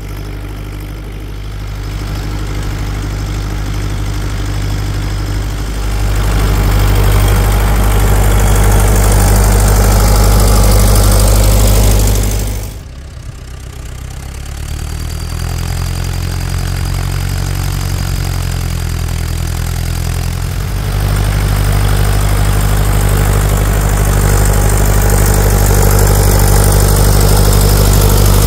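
International Harvester (Case IH) 845 XL tractor's diesel engine running steadily under load while pulling a subsoiler tine through the ground. It gets louder in steps as the tractor nears, drops suddenly about halfway through, then builds up again.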